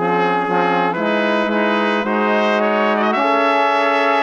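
Background music: a brass melody of long held notes, starting abruptly and stepping to a new pitch about once a second.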